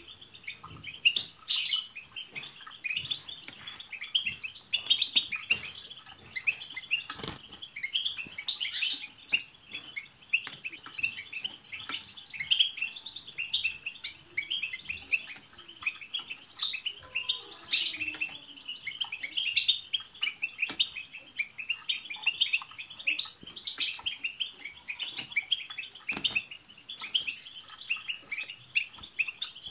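Several European goldfinches singing together: dense, unbroken twittering and chirping, with sharp high call notes breaking through every few seconds.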